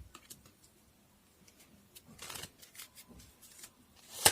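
Tarot cards being handled: soft papery rustles and light taps, a longer swish about two seconds in and a sharp snap near the end.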